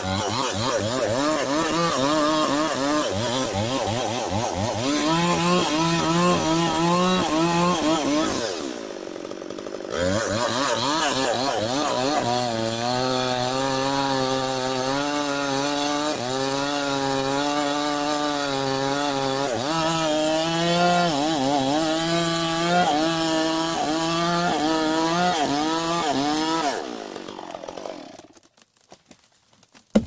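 Two-stroke chainsaw cutting into a large tree trunk, its engine pitch wavering as the chain bites under load. It eases off for about a second a third of the way through, revs back up and cuts steadily again, then dies away shortly before the end.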